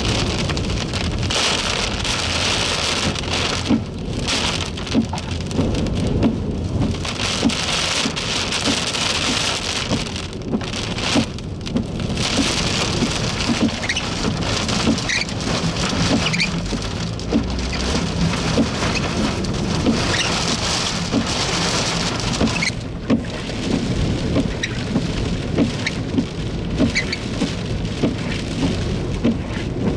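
Heavy rain beating on hard surfaces, a steady hiss with many sharp separate drop hits.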